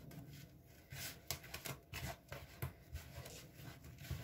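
Hands squeezing and rubbing a crumbly ground almond and peanut filling in a plastic bowl, working in orange blossom water: faint, irregular soft rustling.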